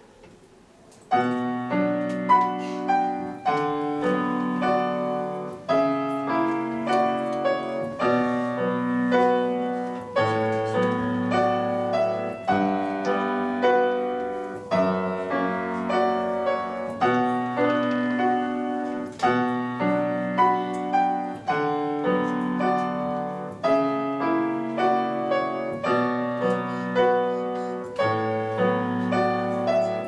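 Solo grand piano playing a classical piece, beginning about a second in after a brief hush, with chords and bass notes in a steady, even rhythm.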